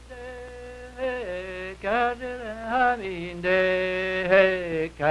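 Soundtrack music: a man's voice singing a slow melody in long held notes, stepping between pitches every second or so.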